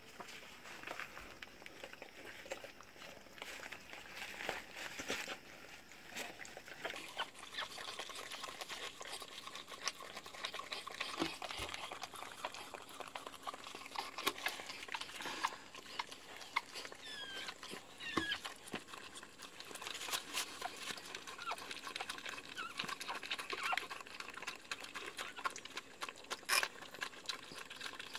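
A whelping dog licking her newborn puppy on newspaper: wet licking, paper rustling and small clicks, with a few short high squeaks a little past halfway.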